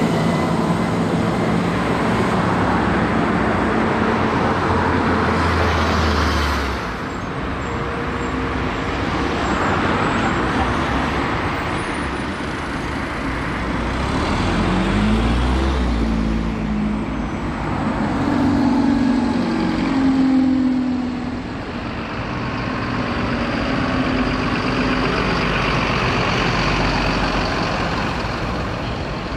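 Dennis Dart SLF single-deck diesel buses running and moving off in street traffic. The sound drops suddenly twice, and there is a short rising engine note about midway.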